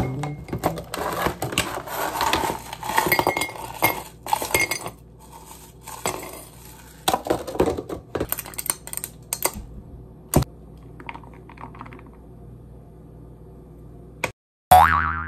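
Ice cubes clattering out of a plastic container into a glass pitcher: many sharp clinks and knocks that thin out after about ten seconds. Near the end, a short cartoon 'boing' sound effect.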